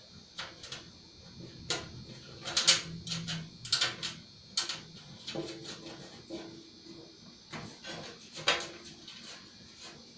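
Irregular metal clinks, knocks and short scrapes as a steering column is worked into a lawn tractor's steering box and bearing.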